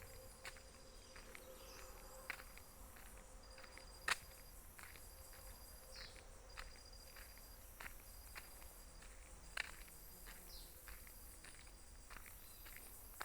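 Faint high insect chorus, crickets or similar, buzzing in spells that start and stop every second or two. Scattered sharp clicks sound over it, the loudest about four seconds in.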